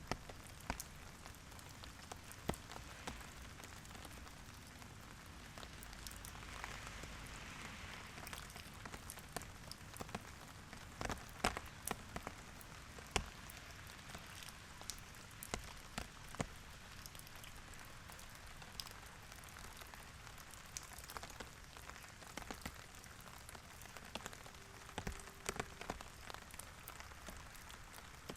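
Steady, gentle rain falling, with a soft hiss and individual drops tapping close by in sharp, irregular clicks.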